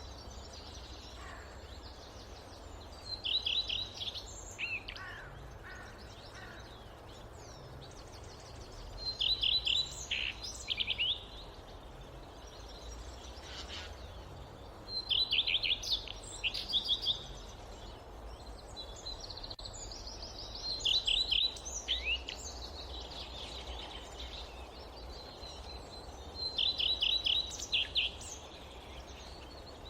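A songbird repeating the same short song of quick, high, descending notes about every six seconds, five times in all, with fainter calls from other birds between, over a steady low rumble of wind.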